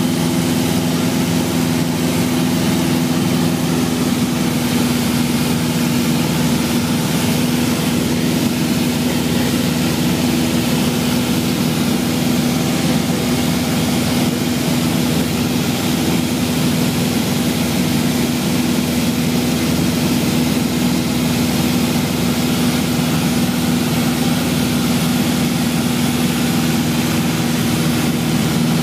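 Light aircraft's engine and propeller droning steadily in cruising flight, heard from inside the cabin with a constant rush of airflow.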